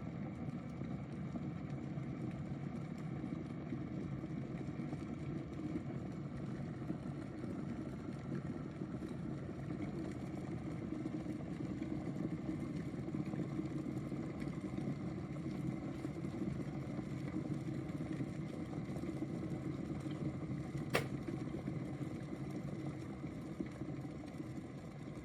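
Electric kettle heating water: a steady rumbling hiss as the water warms toward the boil, with a single sharp click about 21 seconds in.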